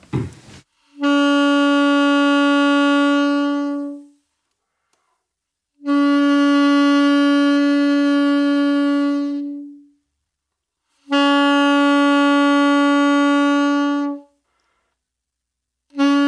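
Alto saxophone playing the same long held note three times, each lasting about three to four seconds with short silent gaps between, and a fourth starting near the end. These are long tones played to show how embouchure tightness changes the saxophone's sound.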